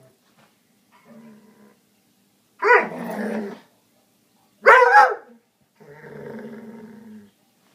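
Foxhound–springer spaniel mix dog growling, with two loud barks about two seconds apart, each trailing off into a growl, and a low, steady growl near the end.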